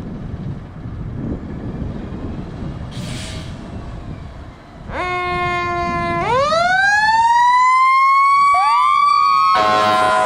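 Fire engine's engine rumbling with a short hiss, then about five seconds in a blast of its air horn. Its siren then winds up, rising slowly in pitch, a second faster siren sweep rises over it, and another loud air horn blast comes near the end.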